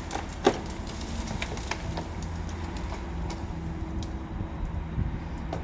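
Large crane's engine running steadily in a low rumble, with a short, sharp sound about half a second in.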